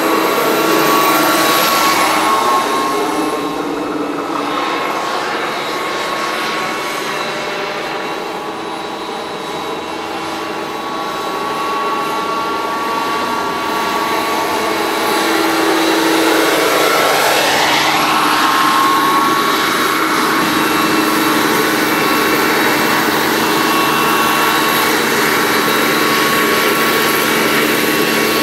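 Single JetCat turbine of a large radio-controlled CH-53 Super Stallion model helicopter running with a steady high whine over the rotor noise. It grows fainter about a third of the way in, then louder again as the helicopter comes close and hovers low, its pitch sweeping as it passes by.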